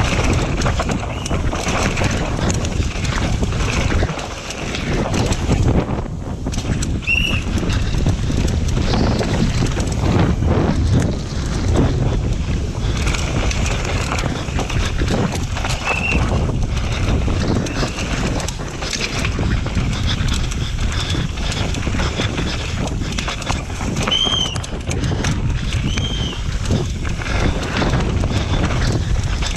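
Downhill mountain bike ridden fast down a dirt course, heard from a bike-mounted action camera: wind rushing over the microphone, tyres on dirt, and frequent rattling knocks from the bike over bumps. A few short squeals come through now and then.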